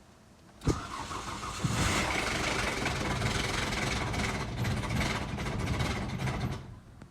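Toyota Corolla 3ZZ-FE four-cylinder engine started: a sharp click and about a second of cranking, then it catches and runs for about five seconds before being switched off. It is run to show a rattling noise from the engine.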